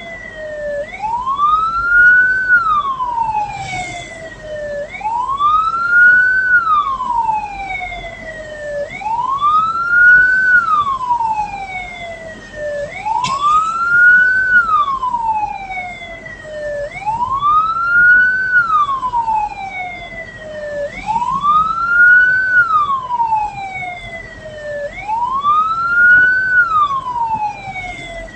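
Hearse siren wailing: a quick rise and a slower fall in pitch, repeating about every four seconds.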